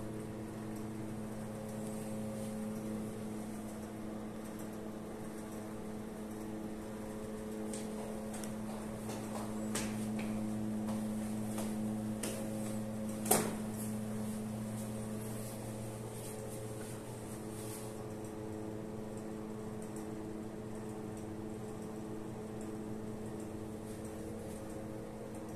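Steady low machine hum, the kind of room hum given off by ventilation or other running equipment, with a few faint clicks and one sharp click about halfway through.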